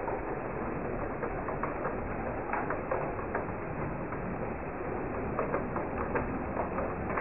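Model railway train running along the track: a steady mechanical rattle of small wheels on rail, with scattered sharp clicks.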